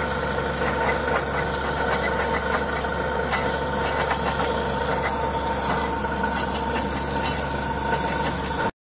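Borewell drilling rig running steadily, its engine and air compressor droning with a steady whine while air and water blow out of the bore. It cuts off suddenly near the end.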